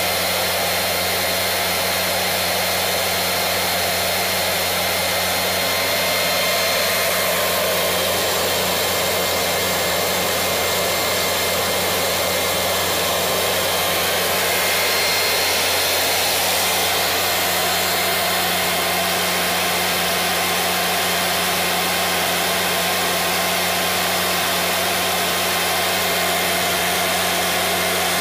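Williams WR27 auxiliary power unit gas turbine running steadily at speed: a loud, even rush with fixed high whining tones over a low hum. The hum comes from its load compressor stalling, as the bleed air is closed off.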